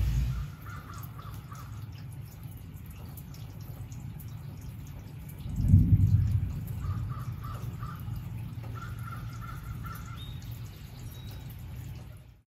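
Low rumble of thunder running under, swelling to its loudest about five and a half seconds in and then dying away. Over it a bird calls in three short runs of quick repeated notes.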